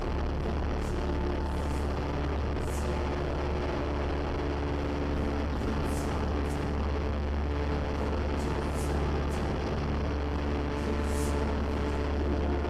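Cessna 172R's four-cylinder Lycoming engine and propeller droning steadily, heard from inside the cabin, with a few brief high hisses every few seconds.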